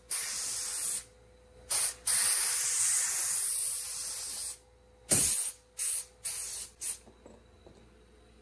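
Compressed-air blow gun hissing in blasts as it clears sawdust from a freshly CNC-cut groove in a bamboo butcher block. There is a one-second blast, a short puff and a long blast of about two and a half seconds, then four quick puffs, stopping about seven seconds in.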